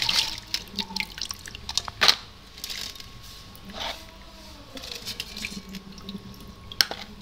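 Water splashing and dripping as hands rinse and handle raw crab pieces in a steel basin of water, with scattered sharp clicks, the loudest about two seconds in and near the end.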